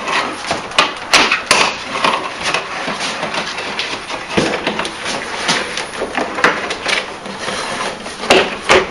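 Wooden solar air heater box being maneuvered into a window opening: irregular knocks and scrapes of wood against the window frame and sill.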